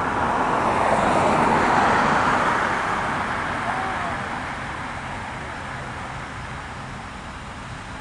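A road vehicle passing close by: a smooth rush of engine and tyre noise that swells to a peak about a second or two in, then slowly fades.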